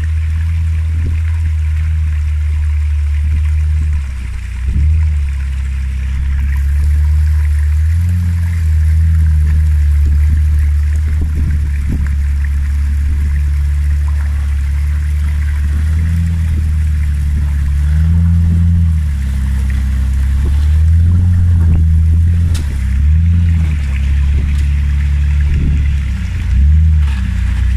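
Modified Jeep Wrangler's engine running at low revs as it crawls over rocks, the revs rising briefly several times and dipping about four seconds in. A steady rush of water from the runoff stream in the gully runs underneath.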